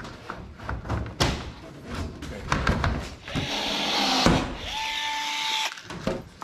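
Sheet-metal race-car body panels knock and clatter as they are handled. About three seconds in, a cordless drill runs for a couple of seconds driving fasteners into a panel, with its motor whine held steady near the end.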